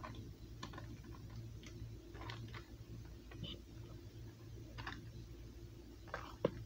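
Soft butter being scraped off its wrapper with a spatula into a stainless steel mixing bowl: scattered light scrapes and taps, with a sharper tap near the end, over a low steady hum.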